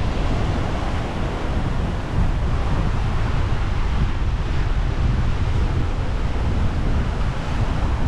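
Wind buffeting the microphone with a loud, uneven rumble, over a steady rushing wash of sea surf.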